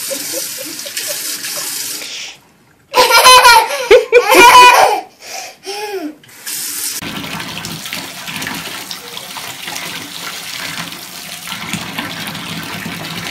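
Tap water running into a sink with a baby splashing in it. About three seconds in, a baby laughs loudly for about two seconds, with a short vocal sound after it. After a cut, a bathtub spout runs steadily into the tub.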